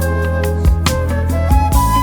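Background music: sustained melodic notes over a steady bass line with a regular beat.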